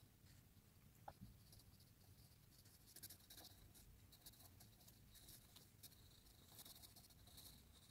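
Faint scratching of an HB pencil on drawing paper, in clusters of quick short strokes, with one small click about a second in.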